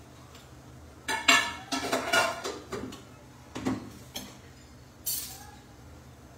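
Steel kitchen utensils and pots clattering and clinking as they are moved about on a counter. A burst of clatter comes between about one and three seconds in, then two single knocks and a short scrape near five seconds.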